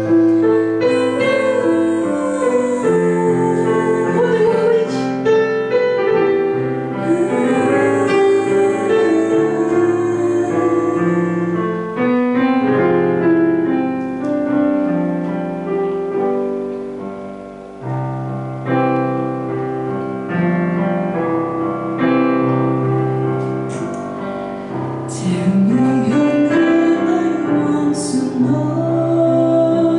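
Digital piano playing a slow song introduction in full chords with a melody line on top. Near the end a woman's singing voice slides up and comes in over the piano.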